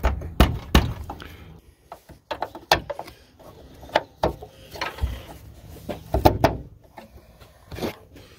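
Irregular plastic clicks, knocks and snaps as a 1997 Ford F-150 headlight assembly is worked loose, pushed on with one hand while the adjuster is pushed down with the other to free it from its mount.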